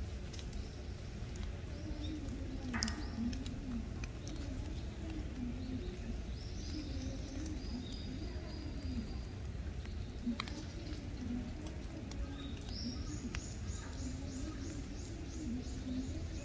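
Birds calling in the surrounding trees: a held high call around the middle and a fast repeated high trill of about four notes a second near the end, over a steady low background rumble and low wavering sounds.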